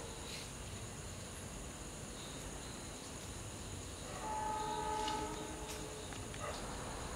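A train horn sounds one steady blast of about a second and a half, about four seconds in.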